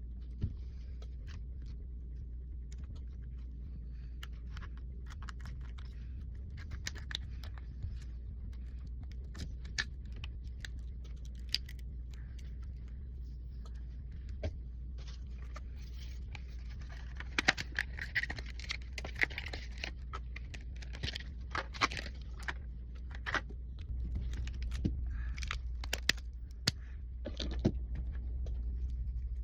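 Small clicks, taps and short scrapes of hand tools and phone parts being handled during an iPhone repair, over a steady low hum. They are sparse at first and come thicker and louder in the second half.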